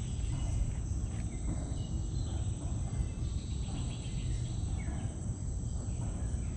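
A steady, high-pitched drone of insects, over a continuous low rumble.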